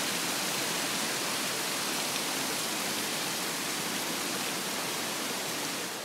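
Steady hiss of running water, even and unbroken.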